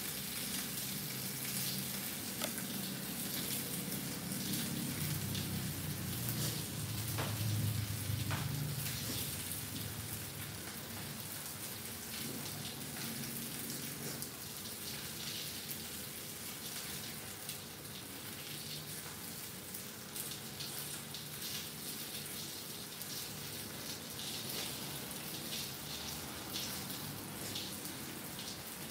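Salmon steak frying in oil in a cast-iron skillet: a steady sizzle full of small crackling spatters. A low hum swells and fades between about four and nine seconds in.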